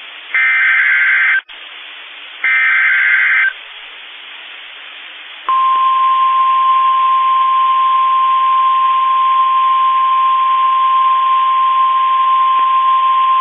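NOAA Weather Radio Emergency Alert System activation: two one-second bursts of the SAME digital header's data tones with receiver hiss between them. About five and a half seconds in, the steady 1050 Hz weather-radio warning alarm tone starts and holds, signalling that a high wind warning is being issued.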